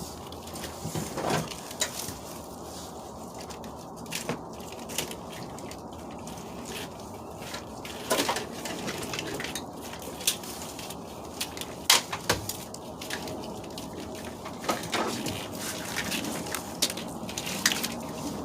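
Irregular clicks, knocks and rustling as a car's wiring harness is handled and pulled free, with plastic connectors and clips snapping loose. The sharpest knock comes about twelve seconds in.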